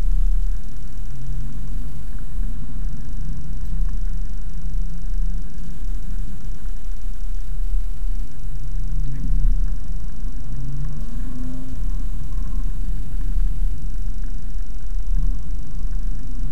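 Mercedes-Benz C-Class coupe engine heard from inside the cabin while driving, over a heavy low rumble. Its pitch climbs and drops back several times as the driver changes gear on the manual gearbox.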